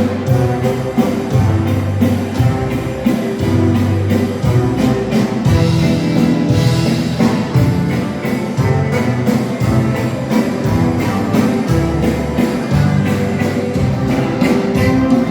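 Waltz music playing for ballroom dancing, with a steady bass line.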